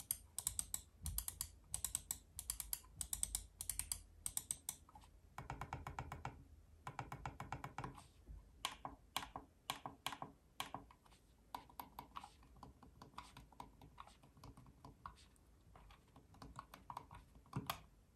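Logitech MX Master 3 wireless mouse buttons being clicked repeatedly to demonstrate their feedback: small crisp clicks, singly and in quick runs, with short pauses between.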